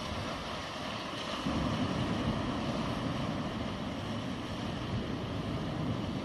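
Sea waves washing on the shore, with wind on the microphone. The water noise swells louder about a second and a half in.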